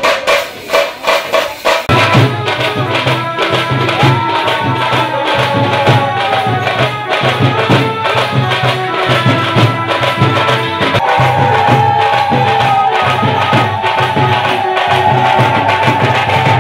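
Aarti music: fast, dense clanging of struck bells and cymbals with drumming, the drums coming in strongly about two seconds in, and long high tones that slide down in pitch several times over it.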